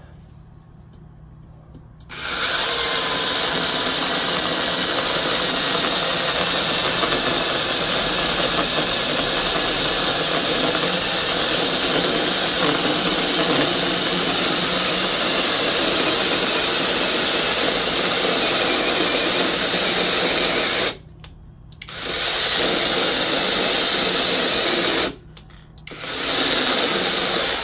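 Bei & Hong brushless 6-inch mini chainsaw cutting through a log, its motor starting about two seconds in and running steadily under load. Near the end it cuts out abruptly twice and comes back each time: the overload cutout tripping, which the owner puts down to the chain binding because the cut was not made straight.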